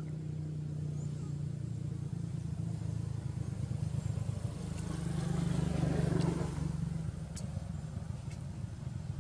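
Low, steady drone of a motor vehicle engine, swelling to its loudest about six seconds in and then easing off, as a vehicle passing by.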